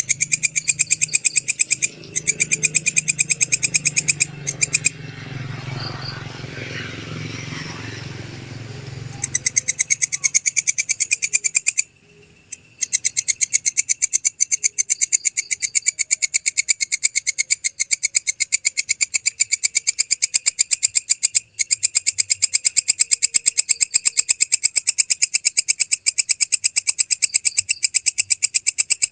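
Walang kecek (belalang kecek) insect calling: a long, fast, even train of sharp, dry clicking chirps that stops briefly a few times. The calls fade for a few seconds about five seconds in, while a low rumble sits underneath for the first third.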